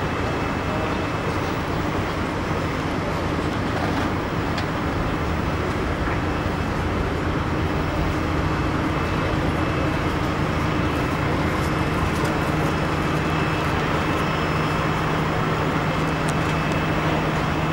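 Steady rumble of a running vehicle engine, with a low hum that grows firmer about halfway through.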